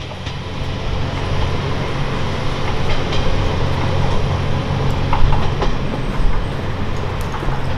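Kanto Railway Joso Line diesel railcar running, its engine a steady low hum that swells over the first couple of seconds, with a few sharp clicks from the wheels on the rails.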